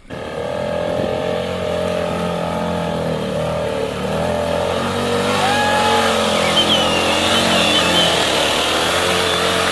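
An adventure motorcycle's engine running under load, its pitch wavering with the throttle, as the bike wades through deep muddy water, with the water churning and sloshing around it.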